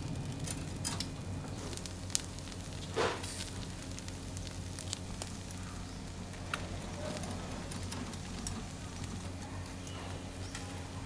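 Skewered catfish sizzling over a charcoal grill, with scattered crackles and a sharp pop about two seconds in, over the steady low hum of the grill's smoke extractor.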